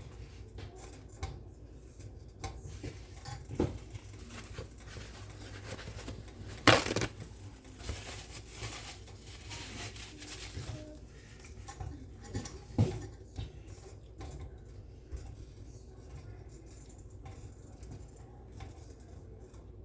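Kitchen clatter of pots and utensils: scattered knocks and clinks, the loudest about seven seconds in and another near thirteen seconds, over a steady low hum.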